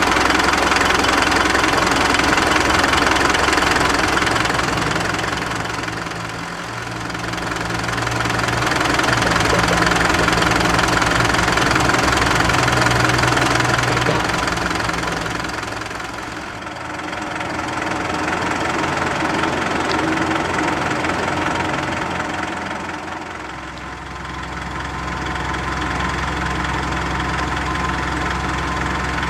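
Mitsubishi Canter's 4M42T four-cylinder turbodiesel idling steadily with the cab tilted open, its loudness dipping and swelling a few times.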